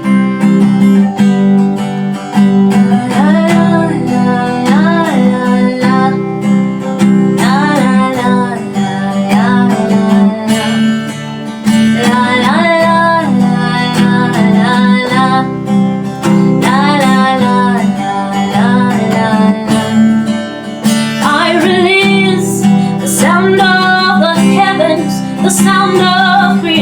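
Worship music: acoustic guitar strumming over a steady low sustained note, with a gliding wordless melody coming in phrases every few seconds.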